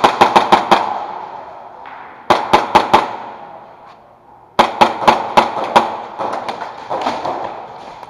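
Airsoft guns firing in three quick strings of shots, about six shots a second, each string followed by a ringing echo. Fainter, scattered shots follow toward the end.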